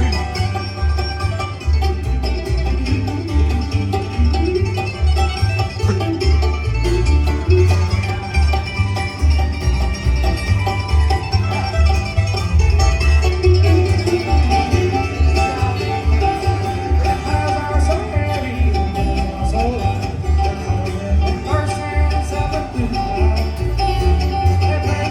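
Bluegrass-style country band music, banjo picking over a steady pulsing bass beat, with no singing.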